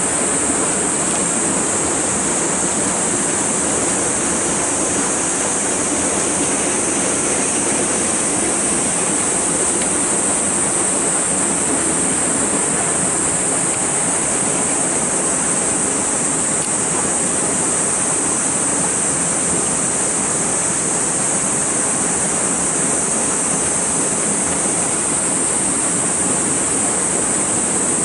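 Stream water rushing through a narrow rock gorge at an inflow, a steady unbroken wash of noise. A steady high hiss sits over it throughout.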